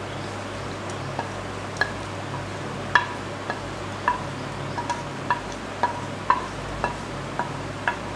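A wooden spoon scraping fried coconut pieces and nuts out of an iron pan into a steel pot, with about a dozen short metallic clinks, irregular and roughly two a second. Under them runs the steady hum of the induction cooktop's fan.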